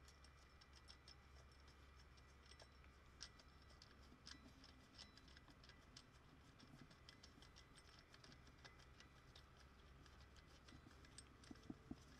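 Faint, irregular clicking of a socket ratchet working the 14 mm idler pulley bolt loose, with a few soft knocks near the end.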